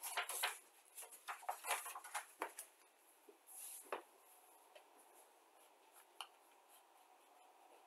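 Paper rustling and sliding as a printed sheet is picked up, moved and set down on a table, a flurry of short scratchy rustles in the first three seconds and one softer slide near four seconds.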